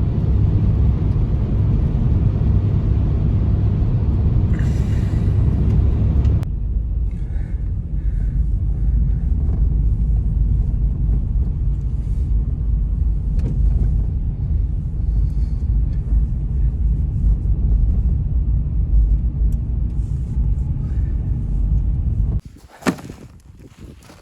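Strong blizzard wind buffeting the microphone, a steady loud low rumble. It changes abruptly about six seconds in and drops away sharply near the end, where a single click is heard.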